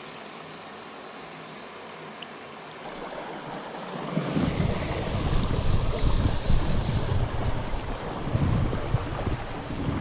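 Creek water flowing, a steady soft hiss; about four seconds in it gives way to a louder, low rumbling of water and wind noise on the microphone.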